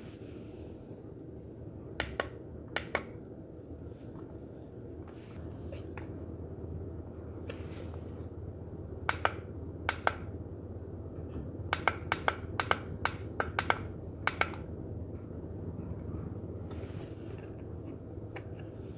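Push buttons on a Timex battery alarm clock clicking as they are pressed to set the date. There are a few scattered single presses, then a quick run of about eight near the middle, each a short sharp click.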